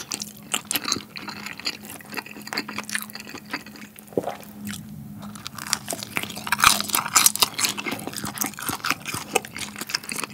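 Close-miked eating: wet chewing and small crunches, then a louder burst of crunching about six seconds in as a piece of glutinous-rice-battered fried squid is bitten and chewed.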